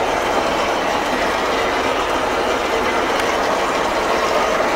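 E303 self-propelled mower's diesel engine and machinery running, heard from inside the cab as a steady, loud mechanical noise.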